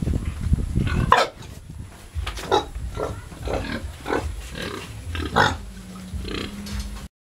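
Pigs squealing off-camera in a run of short, high calls about twice a second, after a low rumbling noise in the first second.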